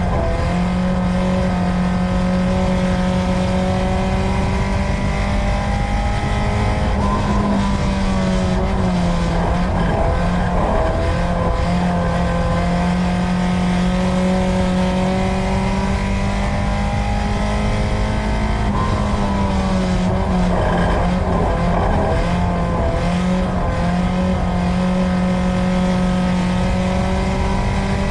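Four-cylinder engine of a USRA Tuner dirt track race car heard from inside the car, running hard at steady revs, then easing off and climbing back twice, about a third of the way in and again about two-thirds in, as it lifts for the turns.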